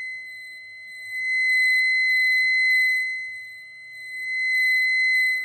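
Handheld cable-break tracer probe giving a steady high-pitched tone as it is moved along an ABS sensor wire. The tone fades twice and comes back as the probe moves; it dies away past the point where the wire is broken.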